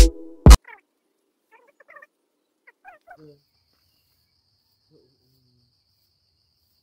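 Background music with a beat ends abruptly about half a second in, leaving faint outdoor evening ambience: a few short faint chirps, then from about three seconds in a steady high insect trill.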